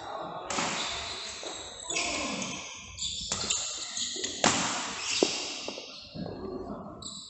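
Badminton play in a sports hall: a few sharp racket hits on the shuttlecock, the loudest about four and a half seconds in, among shoe and floor noise, with some echo.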